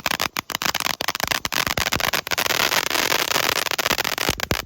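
Dense crackling from a firework's crackle finish: a rapid, continuous mass of small sharp pops from crackling stars.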